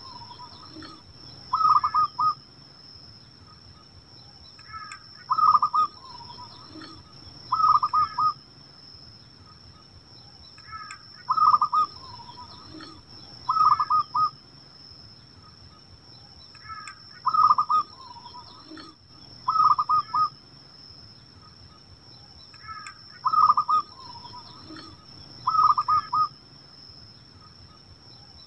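Zebra dove (perkutut) cooing: its short rippling coo phrase given in pairs, a pair about every six seconds.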